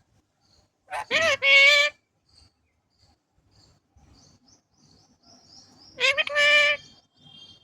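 A parrot calling twice, each call about a second long: a quick swooping note that settles into a steady, loud, harsh tone.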